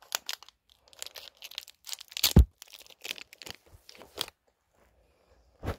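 Crinkling and crunching of a sweet wrapper handled close to the microphone, in short crackles with a loud bump about two and a half seconds in. The crackling stops about four seconds in.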